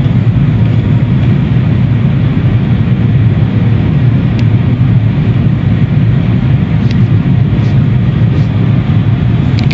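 Automatic car wash machinery running: a loud, steady rushing noise with a deep rumble underneath and no let-up.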